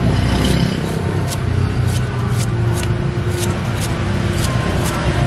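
Cleaver shaving the fibrous husk off a coconut: short, sharp cutting strokes about twice a second, over a steady street-traffic rumble.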